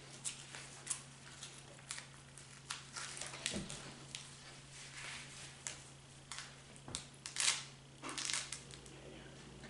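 Rustling and clicking as a Velcro-fastened costume belt is put on and closed round the waist, with two short, louder rasps near the end.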